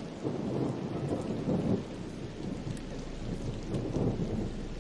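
Rain falling steadily, with thunder rumbling low in uneven swells.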